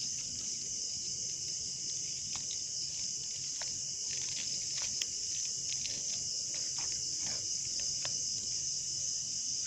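A steady, high-pitched chorus of night insects, chirring without a break. A few light clicks and rustles sound from about four to eight seconds in.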